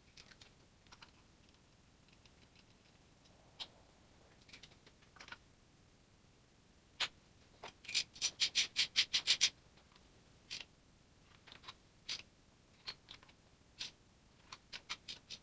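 Ratchet wrench clicking while spark plugs are screwed into a tractor engine: scattered clicks and taps, with a quick even run of about ten ratchet clicks around the middle, the loudest part.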